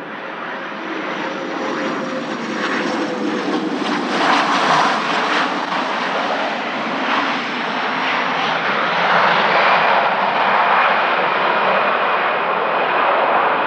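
Canadair Regional Jet CRJ-200's twin turbofans on arrival, a dense jet rush growing louder, with a fan whine that slowly drops in pitch and a high whine coming in later.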